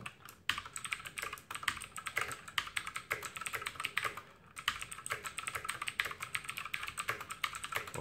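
Fast typing on a TOMOKO 87-key mechanical keyboard: a rapid, uneven stream of key clicks that starts about half a second in, with a brief pause a little after four seconds.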